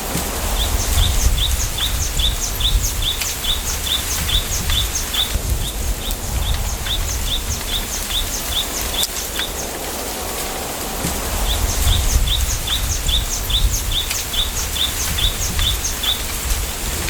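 Bamboo grove ambience: a bird repeating a short, high chirp about four times a second in long runs, pausing twice, over a steady low rumble of wind.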